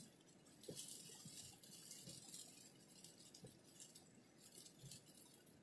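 Near silence, with a few faint scattered ticks.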